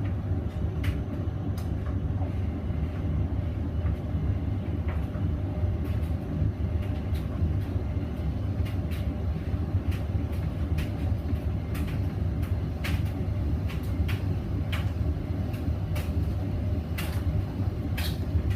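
Hoover Vision Dynamic washing machine running with a blanket load, a steady low rumble with scattered light knocks and clicks, not yet in its spin.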